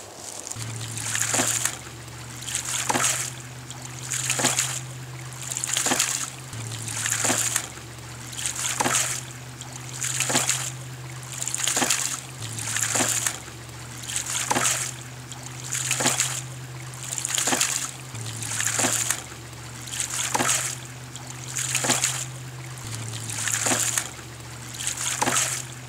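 Ram pump cycling: water gushes from its weighted poppet valve, building for about a second, then the valve slaps shut with a sharp clack, the water-hammer stroke that drives the pump. This repeats steadily about once every second and a half over a low hum.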